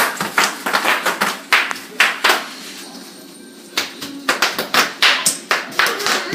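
Bubble wrap being popped: a quick, irregular run of sharp pops that stops for about a second midway, then picks up again.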